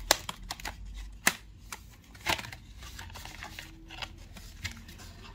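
Clear plastic blister pack being pried open by hand: crinkling and several sharp cracks of the thin plastic, the loudest near the start and about a second in.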